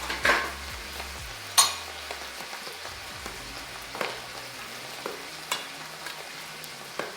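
Food sizzling in a frying pan while it is stirred, with a few sharp clinks of the utensil against the pan.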